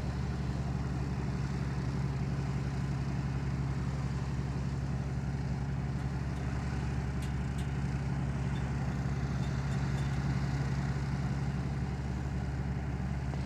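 Twin Rolls-Royce Merlin engines of a de Havilland Mosquito NF2 idling: a steady, even low rumble, ahead of the aircraft's taxi run.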